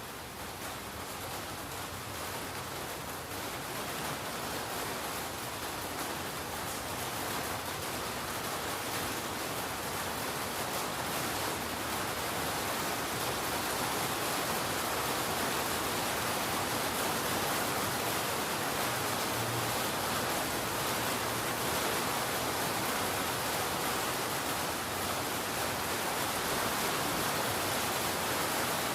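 Steady rain falling, a dense, even hiss that grows a little louder over the first several seconds and then holds.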